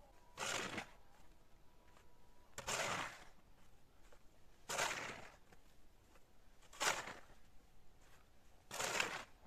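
Five heavy crunches in deep snow, about two seconds apart, each lasting about half a second.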